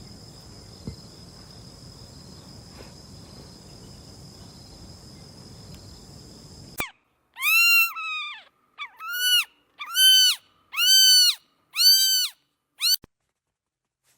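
An animal calling over and over: about seven loud, high-pitched cries, each about half a second long, rising then falling in pitch. They start suddenly about seven seconds in, after a steady background hiss with a faint high whine.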